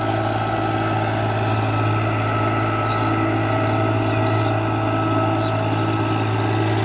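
Farm tractor's diesel engine running steadily under load as it pulls a rotary tiller through a muddy field, a constant drone with no change in pitch.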